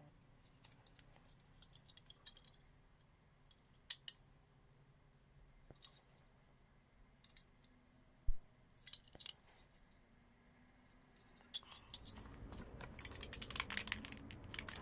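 Small metal parts being handled on a workbench: scattered light clicks and clinks, a dull knock a little past eight seconds, then from about twelve seconds a busier run of clinking and rattling.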